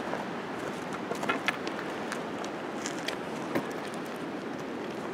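A plastic bag being opened and handled: a few scattered crinkles and clicks over a steady outdoor hiss.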